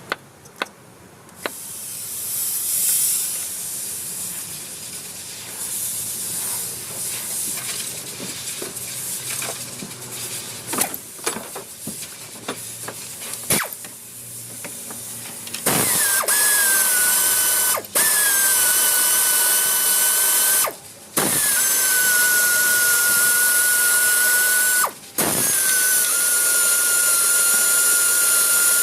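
Scattered clinks and knocks of tools on metal, then a handheld power tool running in runs of several seconds with a loud, high, steady whine. The whine dips in pitch as each run starts and stops briefly three times.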